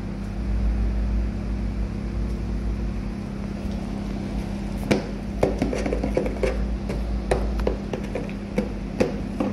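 Steady low hum of a restaurant dining room. From about five seconds in there is a run of irregular light knocks and clicks.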